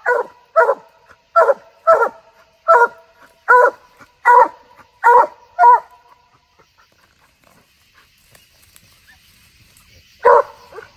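Coonhound barking treed at the base of a tree, the steady bark that tells hunters she is holding game up the tree. About nine loud barks come at a steady pace over the first six seconds, then a pause of about four seconds and another bark near the end.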